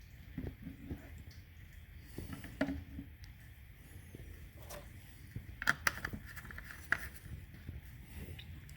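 Faint scattered clicks and small handling knocks, with a few sharper ticks about six to seven seconds in, as parts are handled at the clutch fluid reservoir.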